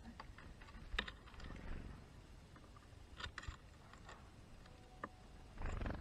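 Scattered dry clicks and taps at a wooden bird feeder, the loudest about a second in: a European greenfinch cracking sunflower seeds on the seed tray and small tits landing on the wooden perch. A short rustle comes near the end.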